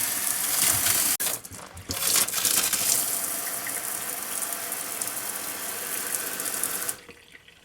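Travel-trailer kitchen faucet running with water spitting and sputtering out, the flow breaking off briefly about a second in, then running steadily until it shuts off near the end. The spitting is a sign of air in the water tank.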